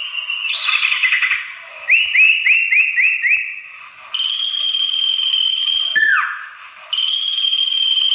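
Common iora (sirtu) calling in a lure-call recording: a short chattering rattle, then a quick run of about six rising notes that curl down, then a long level whistle that breaks off in a sharp falling note, and a second long whistle starting about seven seconds in.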